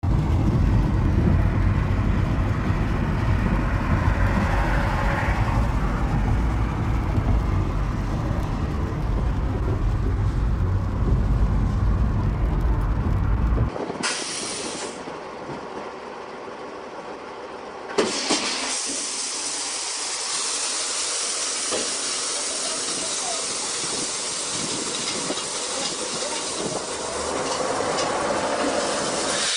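Car driving on a wet road in the rain, heard from inside the cabin: a loud, steady low rumble of tyres and road. Just before halfway it gives way to a tipper truck dumping its gravel load, a steady hissing rush of stones sliding out of the raised bed, which picks up after a sharp knock a few seconds later.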